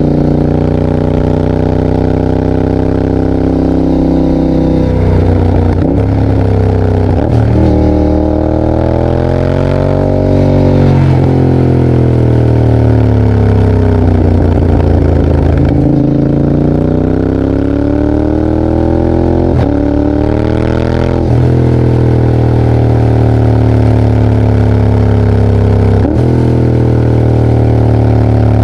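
Yamaha Tracer 7's parallel-twin engine through a GPR exhaust with the dB-killer removed, under way. The note climbs and falls as the bike accelerates and rolls off, with abrupt breaks at about half a dozen gear changes.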